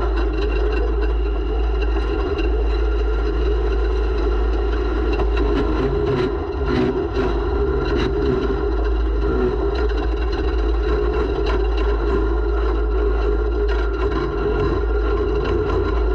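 Racing snowmobile engine running hard at a fairly steady high speed, with scattered knocks and clatters from the sled over the terrain.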